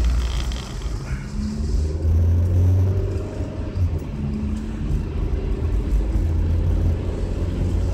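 Car cabin noise while driving on a wet road: a steady low engine and road rumble, with a hiss of tyres on wet pavement that fades about two seconds in.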